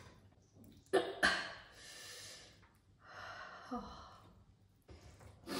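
A woman breathing out audibly as she eats: a long sighing exhale, then a shorter breathy sound, with a couple of sharp mouth or plate clicks about a second in.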